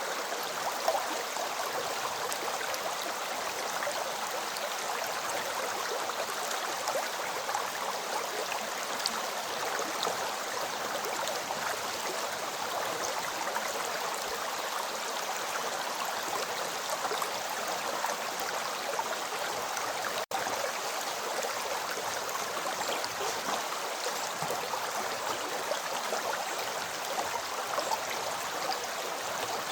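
River water flowing in a steady, even rush. The sound cuts out for a split second about two-thirds of the way through.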